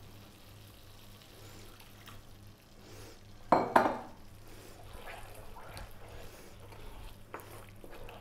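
Chicken stock splashing briefly into thick flour-and-onion gravy in a non-stick frying pan about three and a half seconds in. A wooden spoon then stirs and scrapes through the gravy in the pan.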